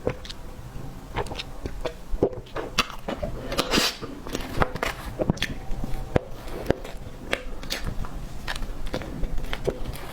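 Close-up eating sounds of cake being bitten and chewed: irregular wet mouth clicks and crackles, several a second.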